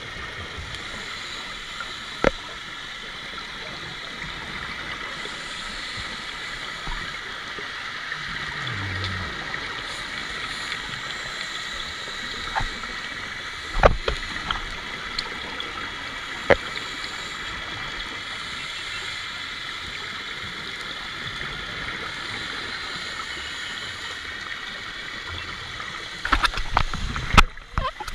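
Underwater ambience recorded during a scuba dive on a coral reef: a steady muffled hiss with a few sharp clicks, and a louder spell of rumbling and crackling near the end.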